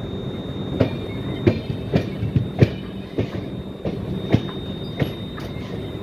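Indian Railways passenger coach rolling slowly on track: about ten irregular clacks and knocks from the wheels and running gear over a steady rumble, with a thin high whine held throughout.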